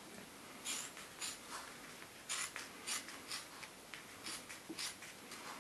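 Scissors cutting lengthwise along a strip of rubber bicycle inner tube, a series of short crisp snips at roughly two a second.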